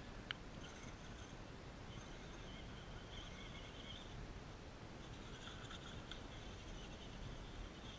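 Faint, high whine from an RC rock crawler's electric motor and gears, coming in short spurts of about a second as it creeps up the rock, over a low rumble of wind. A single sharp click about a third of a second in.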